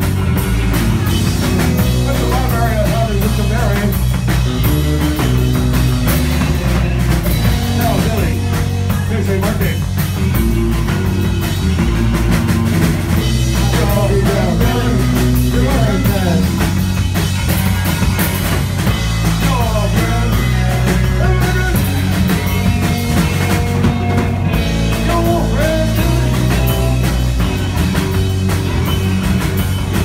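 Live rock band playing loud: distorted electric guitar, electric bass and drum kit, without a break.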